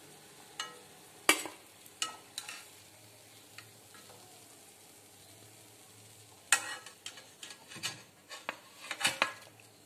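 Battered green chillies sizzling faintly in hot oil in a steel kadai, with a perforated steel slotted spoon clinking against the pan and the plate as the fried fritters are lifted out. A few sharp clinks in the first four seconds, then a busier run of clinks and scrapes over the last three seconds.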